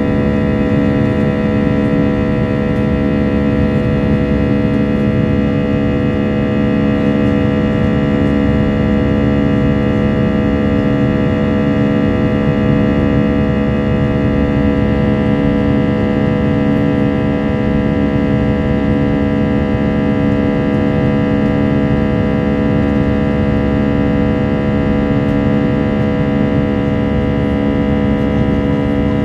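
Airbus A320 jet engines heard from inside the passenger cabin during the climb: a loud, steady drone with a low hum and several steady tones layered above it.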